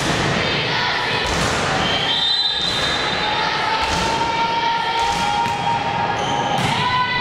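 A volleyball is struck several times during a rally, each hit a sharp slap ringing in a large sports hall, over a bed of shouting voices.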